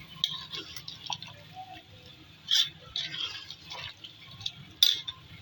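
A spoon stirring potatoes through a wet minced-meat curry in a cooking pot, with uneven scraping and clinking against the pot and two louder knocks, about two and a half seconds in and near the end.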